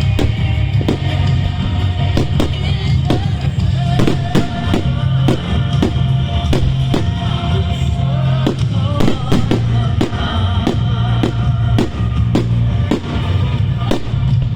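Fireworks bursting in quick succession, about two sharp bangs a second, over loud music with a steady low beat.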